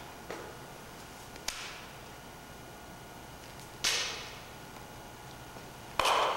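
Sharp slaps of hands on skin, body percussion: two lighter ones in the first second and a half, then two loud ones about four and six seconds in, each ringing briefly off bare concrete walls.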